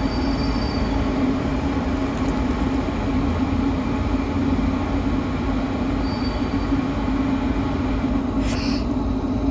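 A train rolling steadily on rails with a constant low rumble, and a faint high wheel squeal that comes and goes.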